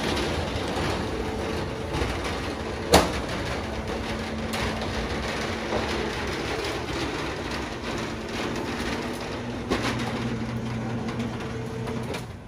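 Motorized roll-up steel security shutter opening: a steady motor hum under the rattle of the slats winding up, with a sharp knock about three seconds in. The running stops shortly before the end.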